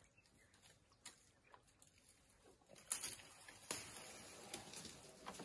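African elephant bull feeding on a tree: faint rustling of leaves and small twig cracks as its trunk pulls at the branches, growing louder with sharp snaps about three seconds in.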